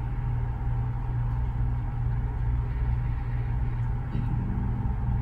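Steady low hum of a running machine, with a faint higher steady tone above it.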